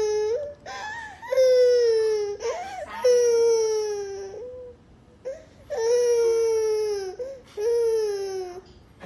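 A 15-month-old toddler crying: long drawn-out wails, each sliding slowly down in pitch, with short sobbing catches of breath between them. The first wail trails off right at the start, and four more follow.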